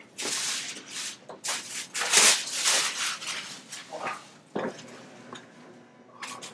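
Clothing rustling and rubbing against a chiropractic table as a person lies down on his back, in a run of shuffling rustles over the first few seconds, then a few softer movements.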